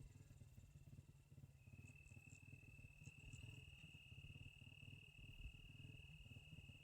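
Near silence: a faint, steady, high-pitched insect trill begins about a second and a half in and holds on, over a low rumble.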